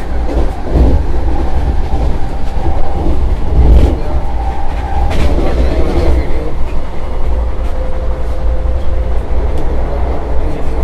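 Vande Bharat Express electric trainset running on the line, heard from inside the driver's cab: a loud steady low rumble with a faint steady hum. A few sharp clicks from the wheels on the track break through now and then.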